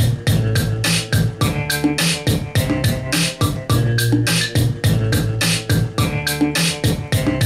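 Electronic dance music with a fast, steady beat, synthesizer chords and heavy bass, played loud through Sony home stereo speakers and picked up by the camera in the room.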